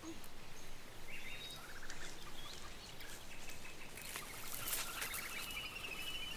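Outdoor garden ambience: small birds chirping now and then in short high whistles over a soft steady background hiss.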